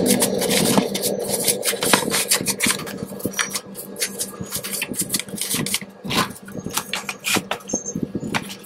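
Bristles of a paintbrush scrubbing dust off a hard plastic clock case: an irregular scratchy rasping with many small clicks and taps.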